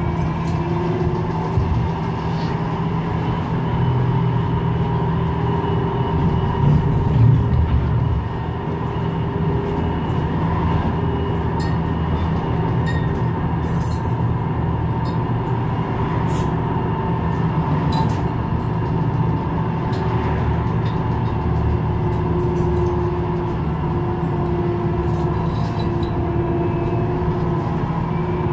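MGT6D low-floor electric tram running between stops, heard on board: a steady rumble with a continuous whine over it, slightly louder for a few seconds about 4 to 8 seconds in, and scattered short clicks and knocks.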